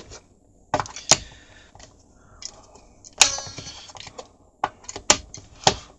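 Sharp plastic clicks and knocks from the case of a 1987 Philips AE2402/05 portable radio being handled, about six in all and the loudest about a second in and a little after three seconds, as the batteries and the battery compartment cover are fitted.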